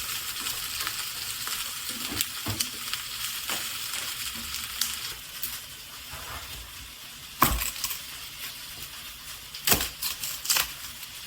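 Starch-coated chicken sizzling steadily in a hot frying pan. Several sharp knocks from a utensil against the pan sound once about seven and a half seconds in, then in a quick cluster near the end.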